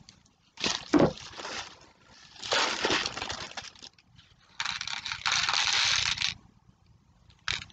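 Plastic packaging rustling and crinkling as it is handled, in three bursts, the last a steady rustle of about two seconds, with a short click near the end.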